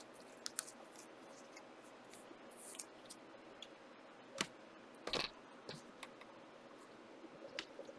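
Faint handling of trading cards and their wrappers, with scattered sharp clicks and snaps. The loudest is a double snap about five seconds in.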